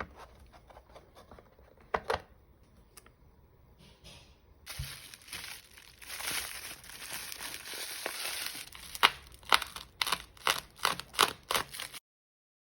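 Merchandise packaging being handled and torn open: crinkling and tearing, ending in a quick run of sharp crackles.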